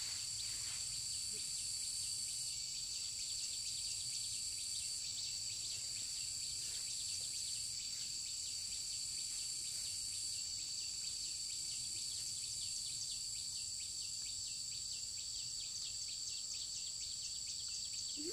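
Chorus of insects in the rice field, a steady high trill with fast, dense ticking that runs without a break.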